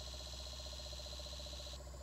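CD player mechanism running, with a faint, fast fluttering pulse over a low hum and a high steady whine. The whine cuts off abruptly near the end.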